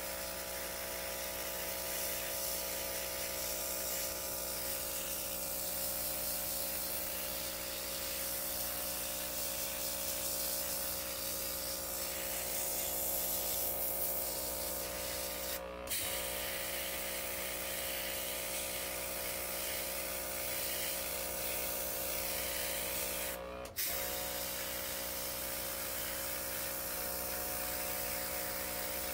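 Airbrush kit's small electric compressor humming steadily while the airbrush hisses, spraying temporary pet ink onto dog fur. The sound cuts out for a moment twice, about halfway through and near the end.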